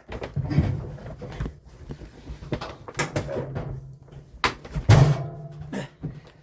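Repeated knocks, bumps and thuds as a person clambers out of a cramped space over a tumble dryer, bracing on the unit; the heaviest thud comes about five seconds in.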